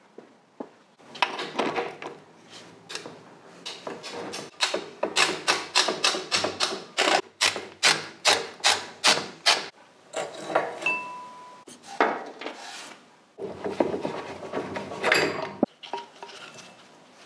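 Hand tools working on a motorcycle during a strip-down: scattered clanks and scrapes, with a run of even rasping strokes of about two or three a second in the middle.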